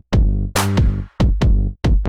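Background electronic music with a drum-machine beat: punchy hits over bass notes, broken by short gaps.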